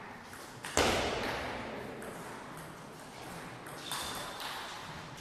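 Table tennis rally: the ball clicking off the bats and the table, with one loud sharp hit about a second in that rings on through the large hall, and another hit near the end.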